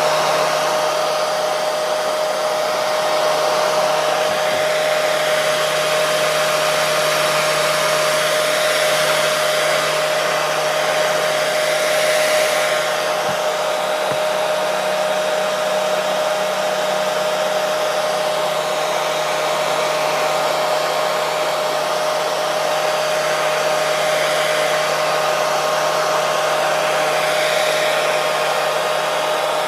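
Hair dryer running continuously: a steady rush of air with a constant motor hum.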